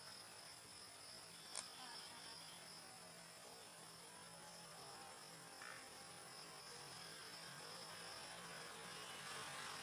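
Near silence: a faint steady hum and hiss, with one brief click about a second and a half in.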